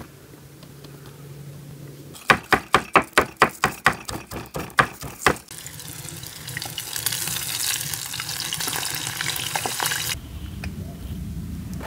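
About a dozen sharp, evenly spaced knocks, roughly four a second, from food preparation, followed by a few seconds of steady hissing.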